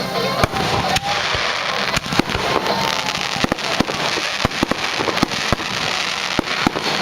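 Fireworks show: aerial shells bursting in quick irregular succession, many sharp bangs with crackling in between.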